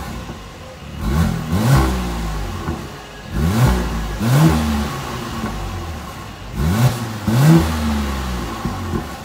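Mercedes-AMG GLC43's twin-turbo V6 revved while standing still, heard through an Fi Exhaust valvetronic cat-back with a catless downpipe: three pairs of quick throttle blips, each rising and falling in pitch, dropping back to idle between them.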